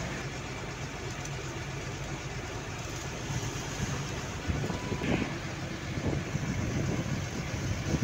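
Steady road and engine noise from inside a moving vehicle at highway speed. From about halfway in, gusty wind buffets the microphone.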